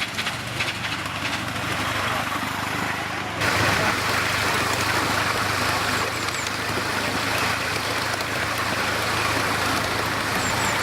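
Live steam model locomotive hissing: the noise comes on suddenly and louder about three seconds in, then holds steady over a low hum.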